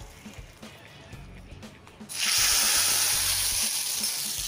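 Hot ghee tempering of mustard seeds, cumin and curry leaves sizzling in the rasam: a sudden loud hiss starts about halfway through and holds steady. Soft background music with a steady beat runs underneath.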